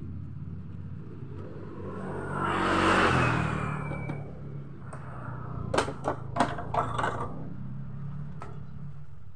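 A passing vehicle swells up and fades away about two to four seconds in, its tone falling as it goes by. Then comes a quick run of five or six sharp plastic clicks and knocks as the scooter's handlebar cover is worked loose. A steady low hum lies underneath throughout.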